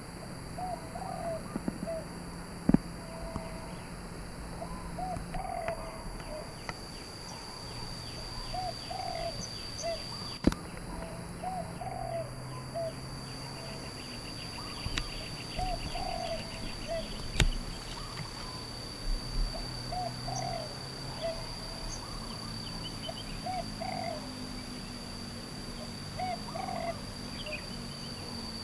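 Spotted dove cooing: a short phrase of two or three low coos repeated every couple of seconds, over a steady high-pitched whine. A few sharp clicks stand out.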